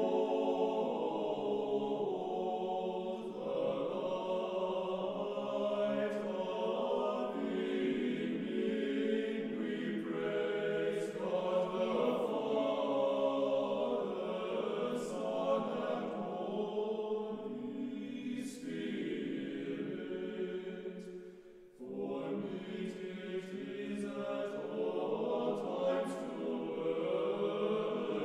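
A choir singing unaccompanied Orthodox chant in long held chords, breaking off briefly about three-quarters of the way through.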